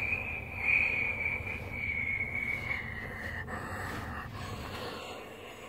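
A person mouthing a jet airliner's engine: a breathy whoosh with a high whine that slowly falls in pitch, fading out near the end.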